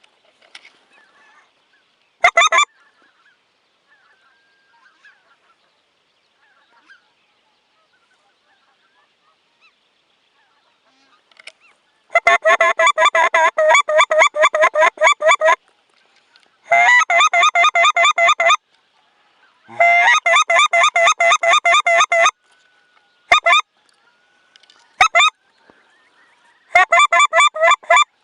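Geese honking in loud runs of rapid, evenly repeated calls, several bursts a few seconds long, with a few short single calls between.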